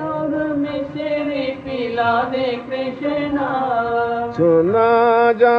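Devotional kirtan singing to Krishna, a sung line whose words are not made out. The voice glides between held notes and rises in pitch about four and a half seconds in.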